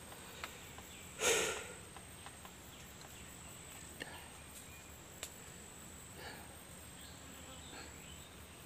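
Faint steady high-pitched insect drone, with one short, sharp breath about a second in from the man suffering from the chilli burn.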